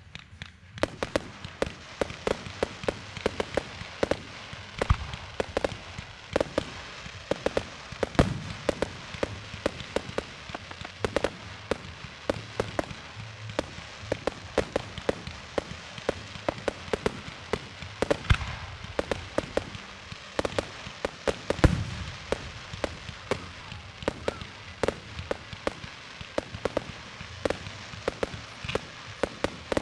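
Aerial fireworks going off in a rapid, continuous stream of sharp pops and crackles, with a few deeper booms. The loudest booms come about eight seconds in and about twenty-two seconds in.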